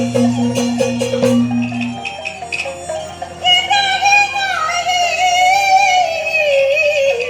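Chinese opera music. Sharp wooden percussion strokes beat over steady held low notes for about two seconds. Then, about three and a half seconds in, a high voice sings a long, sliding, wavering line over the accompaniment.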